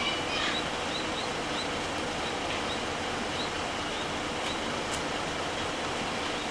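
Hino Rainbow II city bus's diesel engine idling at a stop, a steady even hum.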